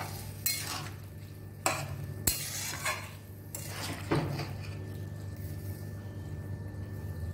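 A metal spatula scrapes and clinks against a kadai while a saucy curry is stirred: several separate strokes in the first four seconds, one of them a sharp click. A steady low hum runs underneath.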